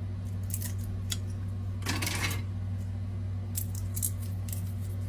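A knife making light, sharp clicks on a cutting board as garlic clove ends are cut off, with one longer, noisier cut about two seconds in. A steady low hum runs underneath.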